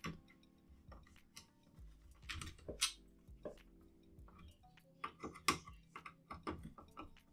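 Small irregular clicks, taps and rattles as long screws are fed through a case fan's frame and screwed into an AIO radiator, with a few louder knocks as the parts are handled.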